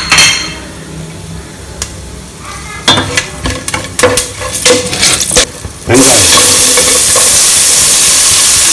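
Wooden spatula stirring whole spices in hot oil in a saucepan, with scattered knocks against the pot. About six seconds in, chopped onions go into the hot oil and set off a loud, steady sizzle.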